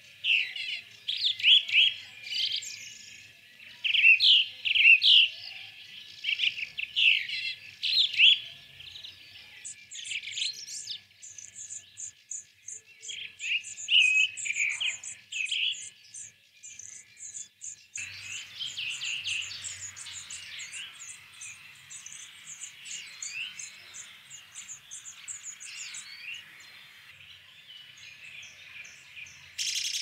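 Small songbirds chirping and singing: loud bursts of chirps at first, then from about ten seconds a fast run of high, thin notes, several a second, over quieter chirps. The sound changes abruptly about eighteen seconds in.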